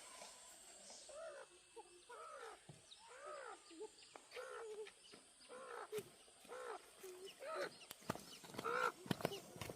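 Chickens clucking in a string of short calls, each rising and falling in pitch, with a few sharp knocks near the end.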